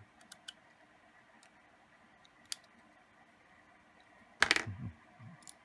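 Small clicks of a Victorinox Champion Swiss Army knife being handled while its scissors are pried open, with a louder clack of metal parts about four and a half seconds in.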